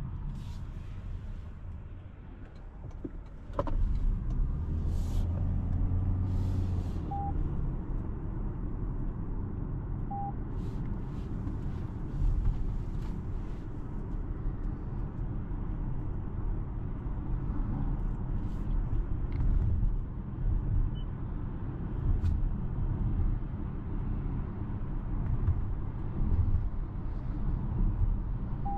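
A car driving, heard from inside the cabin: a steady low rumble of road, tyre and engine noise that grows louder about three and a half seconds in. Two faint short beeps come a few seconds later.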